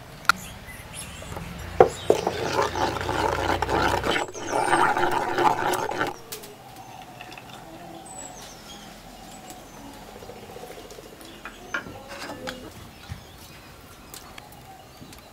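Wooden spoon stirring thick batter in a clay pot: a loud scraping, sloshing stretch in the first half that then drops away. Faint bird chirps sound in the background.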